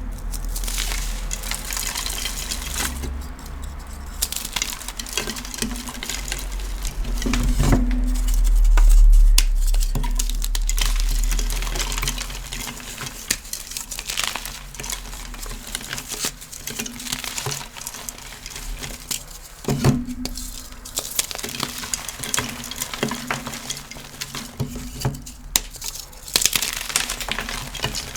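Reformed gym chalk blocks being crushed and crumbled, a dense crunchy crackling of many small snaps with powdery crumbling. A low rumble swells in about eight seconds in and fades a few seconds later.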